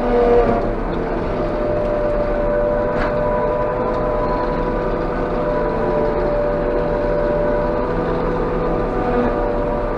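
Claas Jaguar 830 self-propelled forage harvester running steadily while working through swathed grass, heard from inside its cab: a steady engine drone with a steady whine over it. A light tick sounds about three seconds in.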